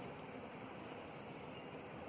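Faint, steady background hiss of outdoor ambience, with no distinct event standing out.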